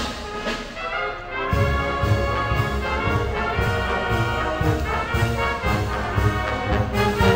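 A concert wind band of brass and woodwinds playing a march, with trumpets and trombones prominent over low beats about twice a second. The low parts are thin at first and come back in about a second and a half in.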